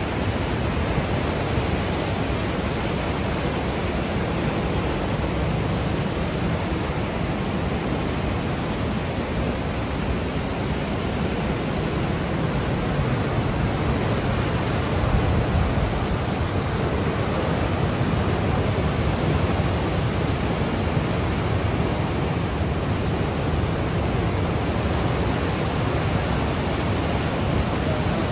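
Niagara River's class 6 whitewater rapids rushing close by: a steady, loud roar of churning water, heaviest in the low range, getting slightly louder about halfway through.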